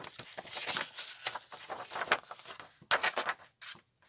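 Sheets of printed paper rustling and crinkling in irregular short strokes as they are handled and unfolded.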